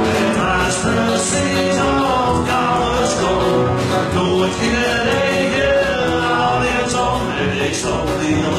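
Live band playing an up-tempo song: electric and acoustic guitars, upright double bass and drums keeping a steady beat, with singing.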